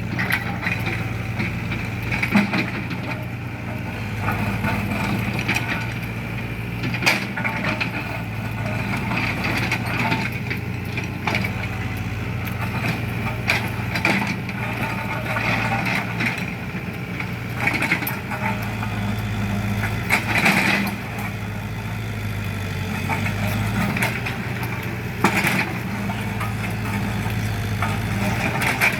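Engine of a road-works vehicle idling steadily with a low hum, with scattered short sharp knocks.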